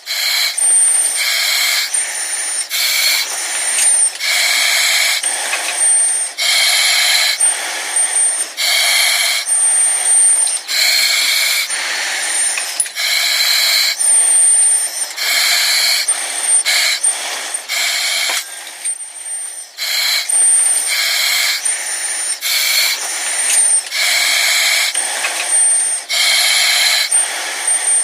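Breathing through an oxygen mask: hissing breaths in and out, about one breath cycle every two seconds, with a thin high whistle during some of the breaths.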